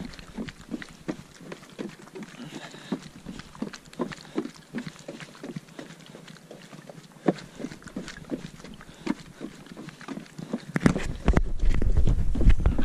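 A hiker's quick, regular footsteps on a trail, about two to three a second, with heavy breathing. Near the end a loud low rumble sets in.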